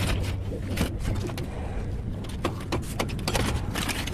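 Irregular clinks and knocks of tool work on a truck's leaf-spring assembly, over a steady low vehicle hum.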